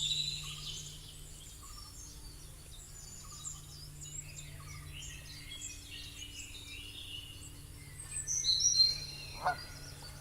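Several birds chirping and calling in short high notes over a faint steady background hum, with a louder flurry of calls a little before the end.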